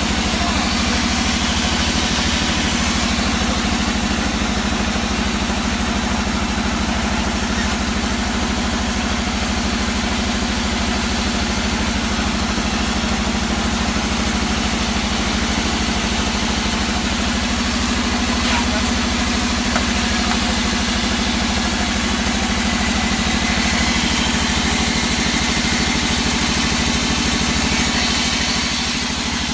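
Engine of a log saw running steadily at a constant speed, with a fast even firing rhythm and a steady hum.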